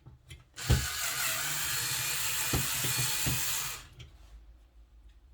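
Electric screwdriver running steadily for about three seconds, backing out a screw from a computer power supply's housing, with a few sharp clicks of the bit and screw before and during it.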